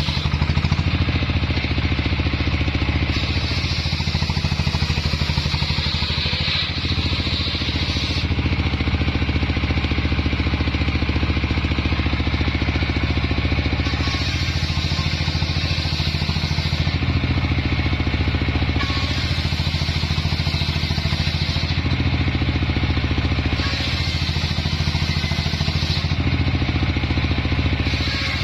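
Stationary diesel engine running steadily, belt-driving a homemade circular saw as it rips a plank of jowar wood. The higher cutting whine of the blade comes and goes several times as the board is fed through.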